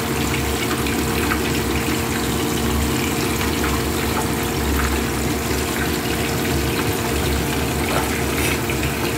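Whole fish frying in a pan of hot oil: steady sizzling and bubbling, over a steady low hum.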